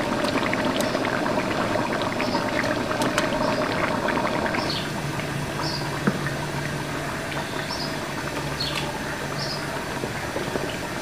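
Raw chicken pieces handled and dropped by hand into a large aluminium pot of wet tomato-and-onion masala: wet handling sounds and a few sharp knocks, the clearest about six seconds in, over a steady hiss.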